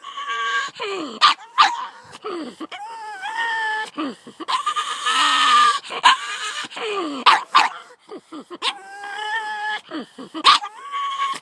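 Pug barking in an odd, strained way: long drawn-out whining cries held at a high pitch, some sliding down, broken up by many short sharp yaps.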